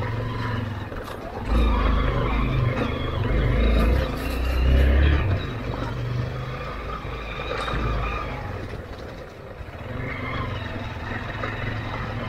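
Motorcycle engine running, with throttle swelling louder about a second and a half in and again around four to five seconds, then easing back to a lower steady run.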